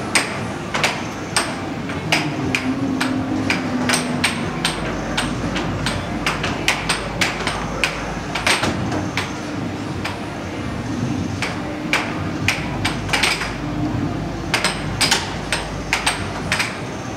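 Air hockey puck and mallets on a Dynamo Fire Storm table: a fast, irregular run of sharp plastic clacks as the puck is struck by the mallets and bounces off the rails.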